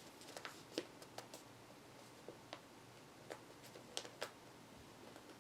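Faint, irregular clicks of typing on a computer keyboard, about a dozen short sharp keystrokes spread unevenly, with a couple of louder ones about four seconds in.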